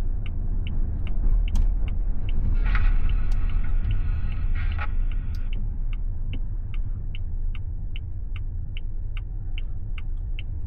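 Turn-signal indicator in the AITO M9's cabin ticking at about three clicks a second over a steady low rumble of tyres and road. A brief brighter tone sits over it around three to five seconds in.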